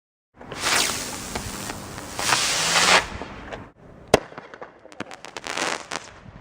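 Small consumer fireworks going off: two loud hissing sprays of sparks, then a single sharp bang a little after four seconds, followed by a quick run of crackling pops.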